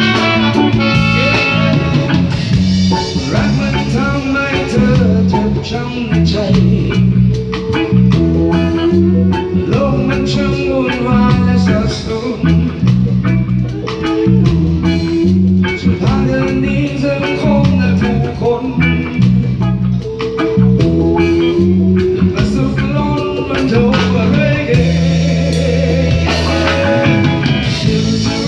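A live reggae band playing: electric guitar and a steady bass line, with a hand drum, trumpets and a sung vocal.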